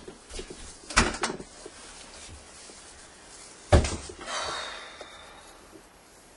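Knocks and thumps of furniture handled in a small room: a quick cluster of knocks about a second in and one loud thump just before four seconds, followed by a soft rustle of clothing as a blouse is tucked into a skirt.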